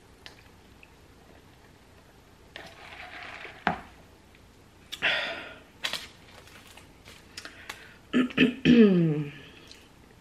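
A sip through a straw, then wrapper paper rustling with scattered sharp clicks as a burger is handled on its paper. Near the end comes a loud guttural throat sound that falls in pitch.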